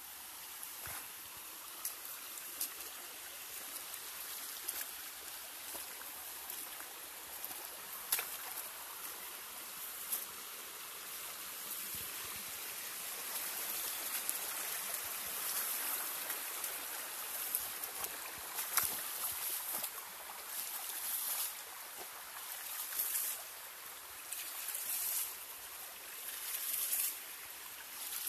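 Shallow creek water running and trickling over rocks, with a few sharp clicks. In the last several seconds, louder surges of splashing water come and go every second or two.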